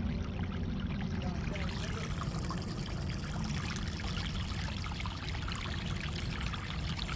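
Water running steadily through a freshly dug drainage trench, draining a waterlogged trail.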